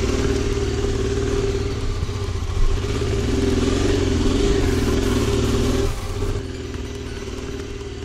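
Motorcycle engine running while riding, its pitch wavering up and down in the middle, then easing off to a quieter, steadier note about six seconds in.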